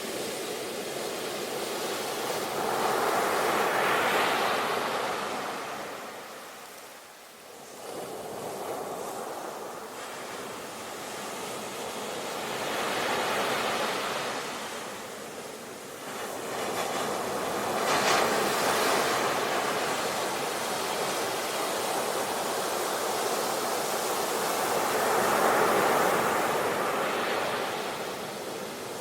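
Sea waves washing in and drawing back, the rushing noise swelling and fading in four slow surges, with a brief lull about seven seconds in.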